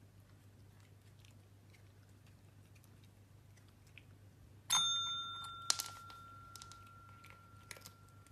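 A cat's paw presses a red pet call bell about halfway through, and it rings with a clear tone that slowly fades. A second tap about a second later cuts off the bell's higher overtones.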